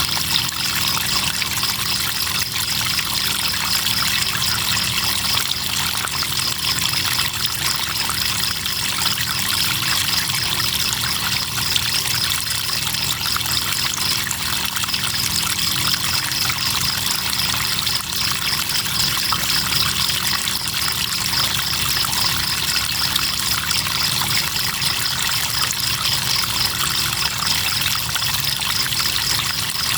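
River water running and trickling steadily, with crickets chirping over it in a fast, even high-pitched trill that pauses briefly a couple of times.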